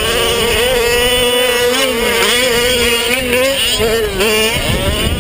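Gas two-stroke engine of a 1/5-scale Losi 5ive-T RC truck, a Zen 29.5 cc with a Bartolone exhaust, held at high revs close by. Its pitch wavers up and down with the throttle, then drops and eases off about four and a half seconds in.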